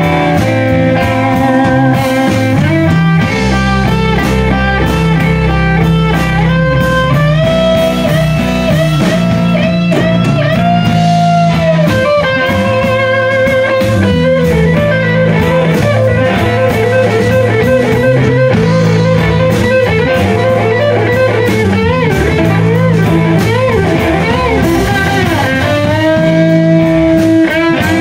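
Live blues-rock band playing: a lead electric guitar solos with string bends and wide vibrato over electric bass, a second electric guitar and a drum kit.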